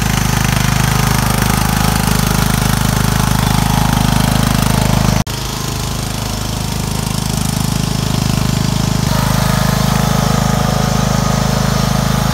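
Ride-on lawn mower's engine running steadily under way, with one sudden brief break about five seconds in.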